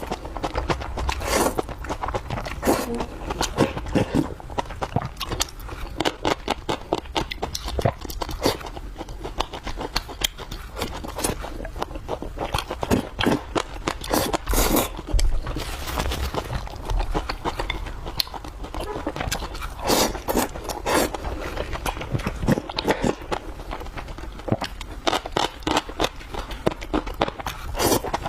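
Close-miked eating sounds: steady chewing with many quick sharp mouth clicks and occasional scrapes, from someone eating a meal of cracked-corn rice and stir-fried dishes.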